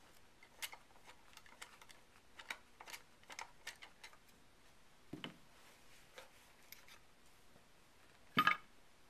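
Long screwdriver loosening the stock bolt down inside a Browning BAR rifle's wooden buttstock: a run of light, irregular clicks and ticks for the first four seconds or so. A dull thump follows about five seconds in, and a louder knock near the end as the buttstock is taken off.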